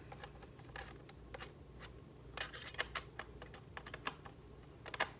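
Tools clicking and clacking as they are picked through in a toolbox: irregular light clicks, with a few louder ones around the middle and near the end.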